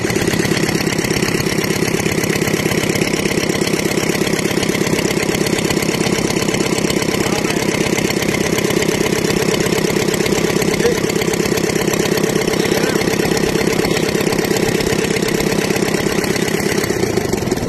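Kubota four-cylinder diesel engine, freshly fitted with new piston rings, running steadily on the bench with an even, rapid diesel beat.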